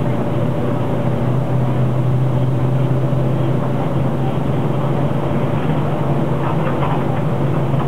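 King Long XMQ6112GF city bus heard from inside while under way: a steady low engine hum over road and cabin noise, holding an even pitch and level.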